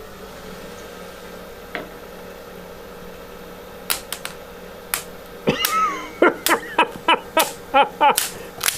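Lathe hum, then a roughing gouge striking a Rubik's cube spinning on the lathe: a series of sharp plastic clacks, roughly two a second, some with a brief squeal, starting about four seconds in.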